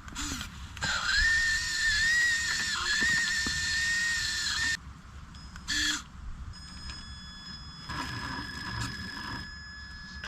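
Electric drive motor and gearbox of a Traxxas TRX-4 crawler on tank tracks whining at a steady high pitch for about four seconds under load, then once more briefly near six seconds. A fainter high whine continues after that.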